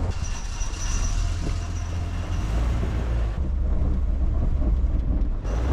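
Chevy K5 Blazer driving, a steady low rumble of engine and road, which changes abruptly twice in the second half.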